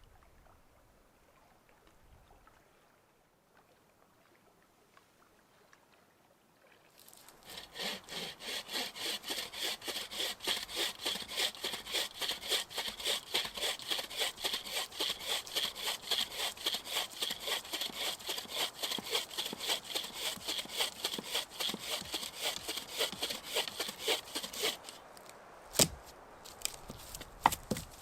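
Hand saw cutting through wood in rapid, even back-and-forth strokes, starting about seven seconds in and stopping about seven seconds under half a minute in. A few sharp knocks follow near the end.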